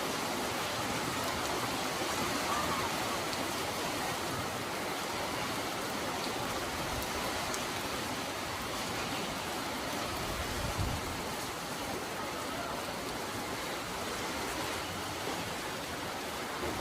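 Heavy rain falling steadily, an even hiss of rain pouring down.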